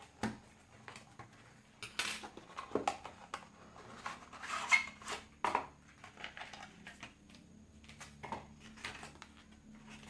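A small product box and its packaging being opened and handled by hand: irregular light clicks, taps and short rustles and scrapes, with a few louder knocks scattered through.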